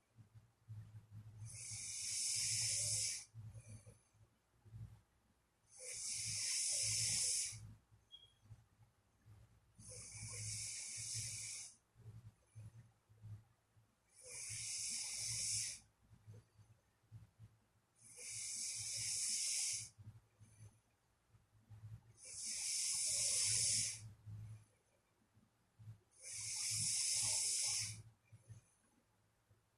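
A sleeping person snoring slowly and regularly: a breathy snore about every four seconds, seven in all.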